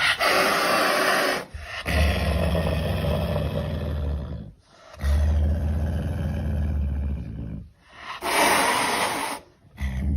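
Loud, rough animal growls in four bursts, each one to three seconds long, with short breaks between them.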